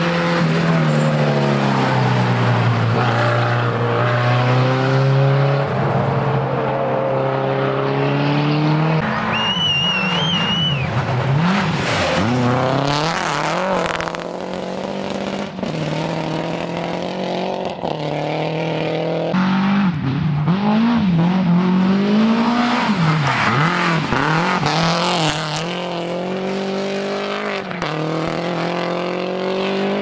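Rally cars driven flat out on a gravel stage one after another, the first a Lancia Delta: engines revving hard, rising and falling through the gears as they pass, with tyre and gravel noise. The sound changes abruptly several times, and a brief high wavering whistle comes in about ten seconds in.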